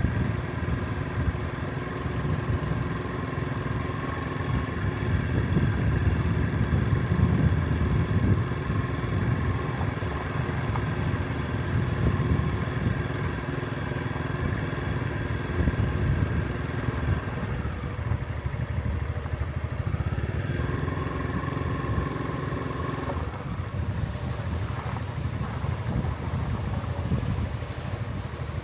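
A motor engine running steadily with a low rumble; its tone changes briefly a little past the middle.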